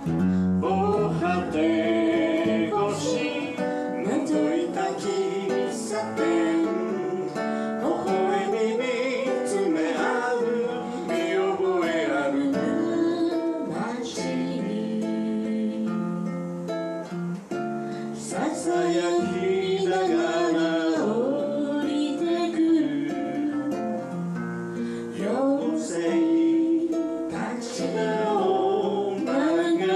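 A song sung to strummed acoustic guitar, the voice carrying a gliding melody over steady chords.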